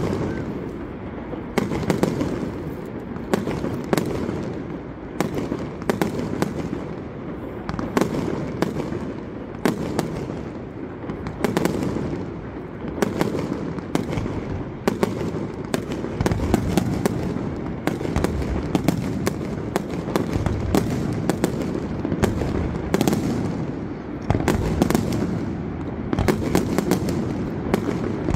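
Aerial fireworks display: shells launching and bursting in a rapid, irregular run of sharp bangs, one to a few a second, over a continuous low rumble.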